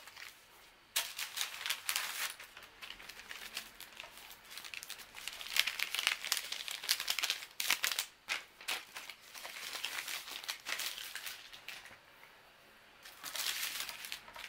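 Thin filo pastry sheets and baking paper crinkling and rustling as they are handled and smoothed out flat. The sound comes in uneven bursts, with short lulls about a second in and again near the end.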